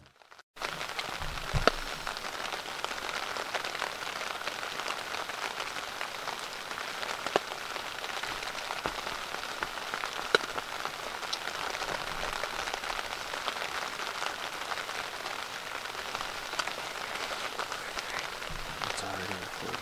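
Heavy rain pounding on the fabric roof and walls of a hunting ground blind: a steady hiss with occasional sharper drop hits.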